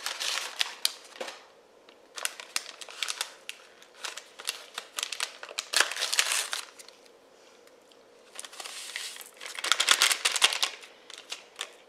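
Dry onion soup mix packet crinkling in four bursts as it is handled and emptied.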